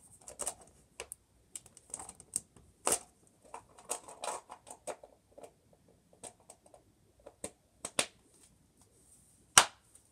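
Irregular sharp clicks and taps of a hard plastic ball capsule being handled, its halves knocking and snapping together, with one louder snap near the end.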